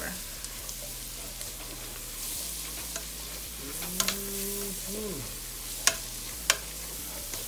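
Flour, bacon fat and chopped vegetables sizzling steadily in a stainless steel pot while a spoon stirs them: a roux being cooked. Three sharp clicks of the spoon against the pot come in the second half.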